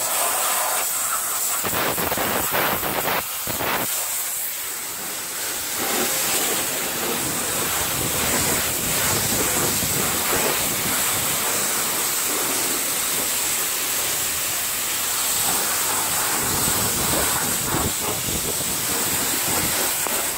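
High-pressure car-wash spray wand blasting rinse water onto a car's wheel and body: a loud, continuous hiss of the water jet that swells and dips as the spray sweeps across the surfaces.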